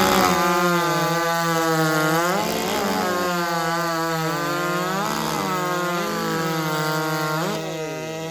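Big-bore two-stroke racing chainsaw, over 90cc, cutting through a log at full throttle. The engine speed sags under load and picks back up about every two and a half seconds, and the sound drops slightly near the end.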